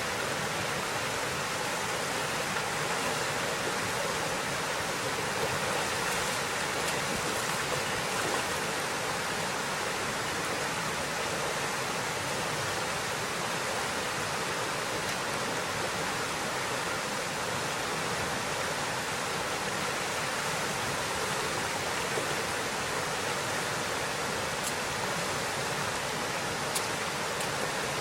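Steady rush of flowing river water, with two faint clicks near the end.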